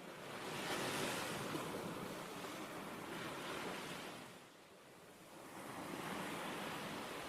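Sea waves washing onto a shore: surf that swells about a second in, eases off in the middle and swells again with the next wave.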